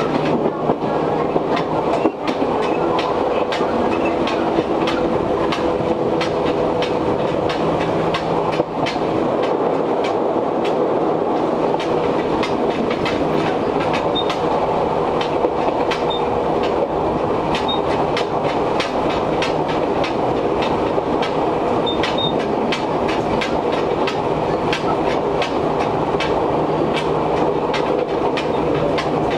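Interior running sound of an Izuhakone Railway 1300 series electric train car at speed. A steady rumble of wheels on rail is broken by frequent clicks and clanks from the rail joints and the rattling gangway plate, over the steady hum of the air conditioning running hard.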